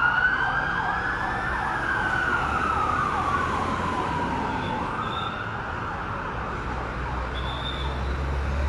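Emergency vehicle sirens, a fast repeating yelp over a slower rising-and-falling wail, fading out about halfway through. A vehicle's low engine rumble builds near the end.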